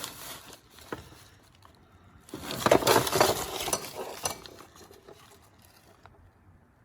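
Tools and loose parts being rummaged through in a toolbox drawer, clattering and clinking, loudest for a couple of seconds near the middle, with a single click about a second in.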